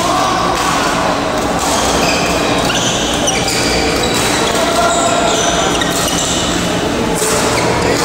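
Steady din of a busy badminton hall, echoing: shoes squeaking on the court floor and thuds of play from the courts.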